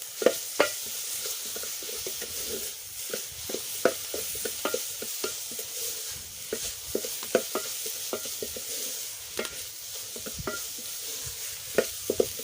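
Amaranth greens (mchicha) with onions sizzling in oil in a pan while a spoon stirs them, knocking and scraping against the pan at irregular intervals; the greens are being cooked down until dry.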